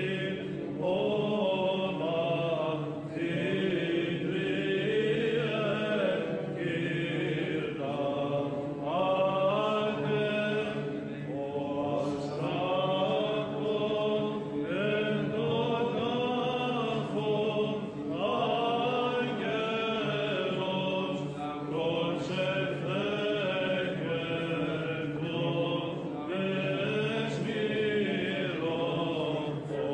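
Greek Orthodox Byzantine chant: a male chanter sings a long, winding melody through a microphone, over a low held drone.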